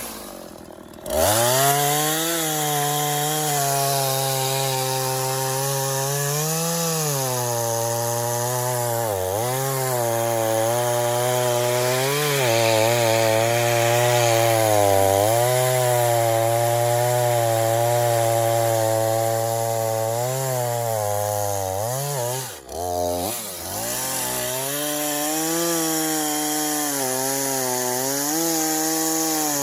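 An Echo chainsaw runs at full throttle cutting through a log. Its pitch sags and recovers as the chain loads up in the wood. About 22 seconds in it drops off for a moment, then comes back up to full speed.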